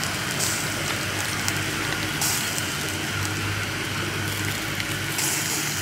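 White catfish grilling on a wire rack over charcoal: a steady sizzling hiss as their fat drips onto the coals, flaring up briefly a few times.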